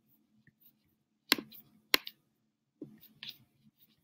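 Two sharp computer clicks about half a second apart, made while clicking on to the next on-screen task. A few faint ticks follow near the end, in otherwise quiet room tone.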